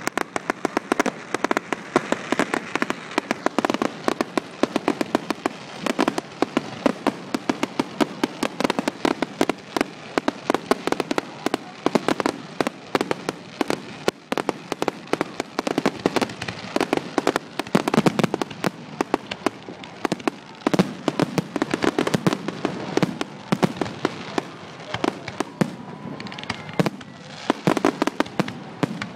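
Aerial firework shells bursting in a fireworks display: a dense, unbroken run of sharp bangs, several a second.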